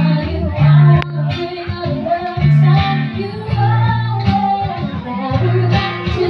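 Live semi-acoustic band music played through a PA sound system: a singer over guitar, with long held bass notes. A single sharp click about a second in.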